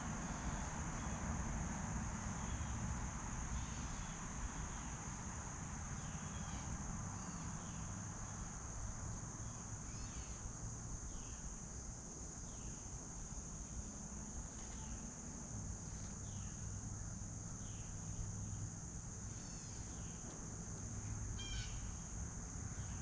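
A steady high-pitched insect chorus of crickets or katydids, with short bird chirps now and then over a low background rumble.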